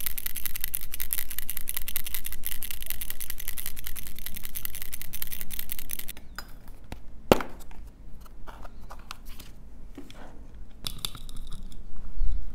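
A bottle of nail colour being shaken hard to mix it: a fast, scratchy rattle that stops abruptly about six seconds in. A sharp click follows a second later, then a few light taps and a soft low bump near the end.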